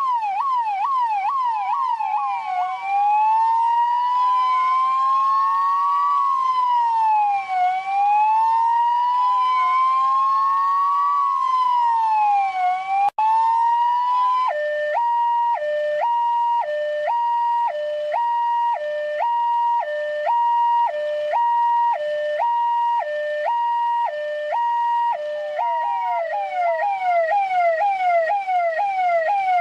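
Indian police siren cycling through its tones: fast yelping sweeps about three a second, then a slow rising-and-falling wail of two overlapping tones, then an alternating two-note hi-lo with each note about half a second long, and back to fast yelps near the end. The sound cuts out for an instant about halfway through.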